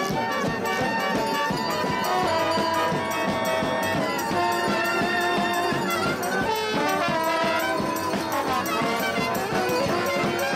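A brass street band playing, horns holding long notes over a steady, busy percussion beat.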